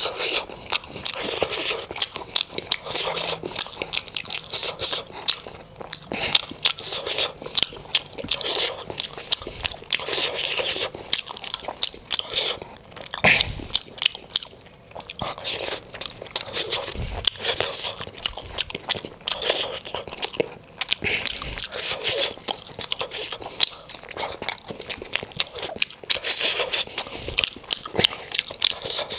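A person chewing and biting steamed momos dipped in chutney: a steady stream of mouth clicks and smacks.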